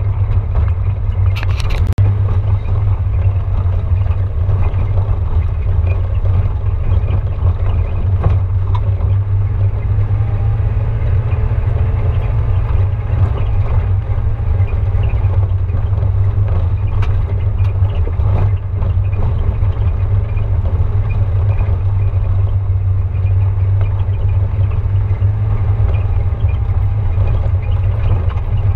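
Vehicle driving up a rough gravel and stone track, heard from inside: a steady low rumble of engine and tyres, with scattered small knocks and clatters from stones under the wheels and a sharper knock about a second and a half in.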